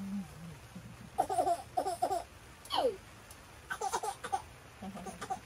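A small child babbling and laughing in short high-pitched bursts, with one squeal that falls steeply in pitch about halfway through.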